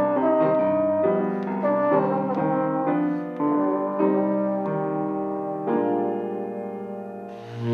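Grand piano and trombone playing a slow piece together, the trombone holding long notes over piano chords. The music fades near the end, then a new low note comes in.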